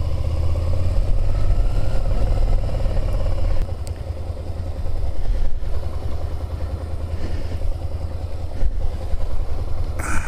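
Suzuki Gladius 650's V-twin engine running at low revs while the bike rides slowly through a cone course, heard through a microphone inside the rider's helmet. The engine sound drops in level about three and a half seconds in.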